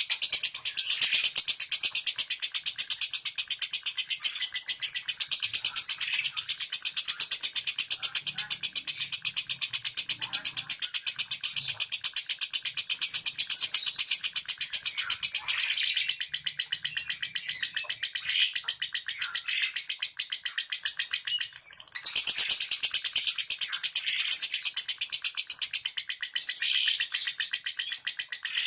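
Lovebird singing a fast, unbroken 'ngetik' song: a dense, rapid run of high-pitched chattering notes, with a brief break about 21 seconds in.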